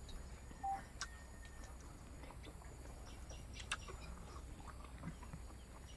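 Faint eating sounds: scattered soft clicks of chewing and of fingers working rice and curry, over a low steady background hum.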